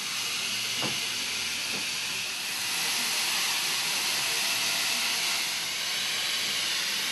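Salon hair steamer hissing steadily, steam blowing from its handheld nozzle over the whole head of hair as a pre-treatment step.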